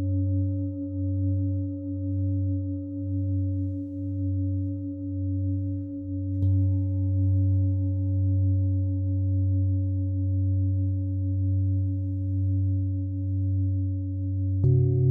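Singing bowls ringing in steady layered tones, the lowest one wavering in a slow pulse. One is struck about six seconds in and another near the end, each adding fresh tones to the drone.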